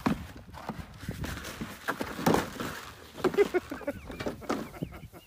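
A calf's hooves knocking and scraping on a black feed trough as it scrambles over it and tumbles down beside it, a string of irregular sharp knocks. High wavering chirps join near the end.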